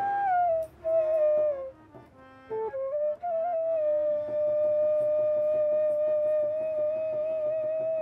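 Background music: a melody of held notes, a short falling phrase and then one long, slightly wavering note from about three seconds in.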